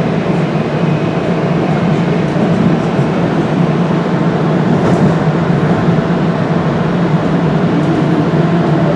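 Inside a moving DART light rail train: steady running noise of the car, a low hum with faint whining tones above it.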